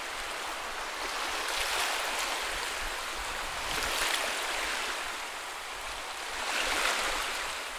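A steady rushing noise that swells and fades about three times.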